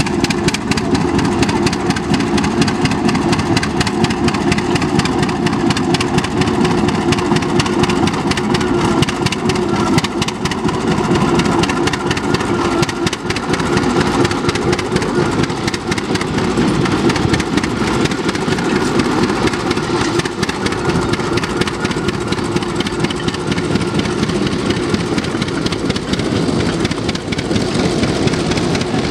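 Rumely OilPull tractor engine running steadily under load as it pulls a trailed plough, with an even, unbroken exhaust beat.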